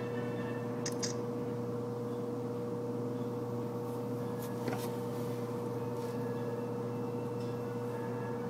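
A steady machine hum holding the same tones throughout, with a couple of faint clicks and scrapes from a knife slicing through a block of aged beef, about a second in and again between four and five seconds.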